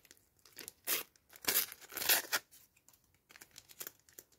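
A sticker packet wrapper being torn open by hand: several short ripping tears, the loudest about a second to two seconds in, followed by fainter crinkling as the wrapper is pulled apart.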